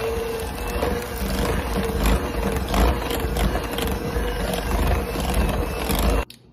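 Electric hand mixer running steadily, its beaters churning a thick peanut butter and cream cheese filling in a glass bowl, with a steady motor whine and occasional light clicks. It cuts off suddenly near the end.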